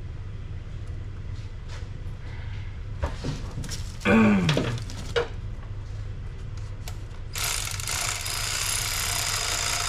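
Hands-on work noises in a car's engine bay: scattered small clicks and knocks over a steady low hum, then a loud hiss lasting about three seconds from near the end.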